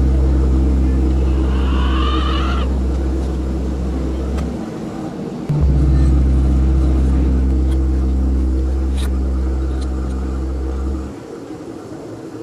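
A loud, deep, steady drone with overtones, held for about four and a half seconds. It breaks off for about a second, then comes back for about five and a half seconds before cutting off abruptly. A brief higher wavering sound rides over it about two seconds in.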